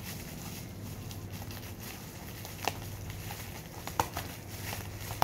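Bubble-wrap plastic packaging rustling and crinkling as a parcel is cut open, with a few sharp clicks or pops, the loudest about four seconds in. A steady low hum runs underneath.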